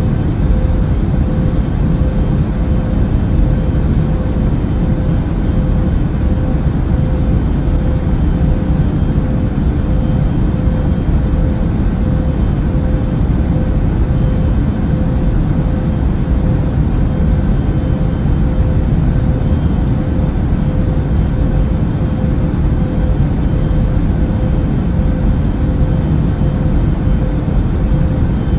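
Steady in-flight cabin noise of an Airbus A380 at cruise: a deep, even rumble of engines and airflow with a steady hum above it, unchanging throughout.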